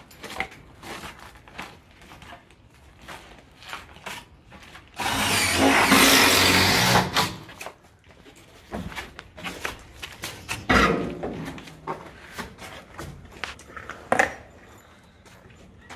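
Power drill driving a screw through a 50 mm AAC panel into the batten, running for about two and a half seconds from about five seconds in. Scattered taps and handling knocks on the panel, with two sharp knocks later on.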